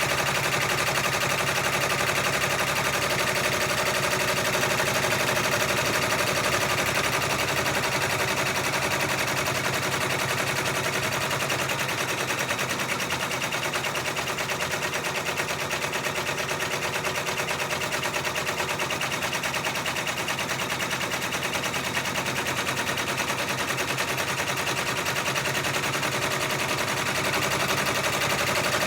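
Six-needle embroidery machine stitching steadily: a fast, even clatter of needle strokes that keeps up without a break.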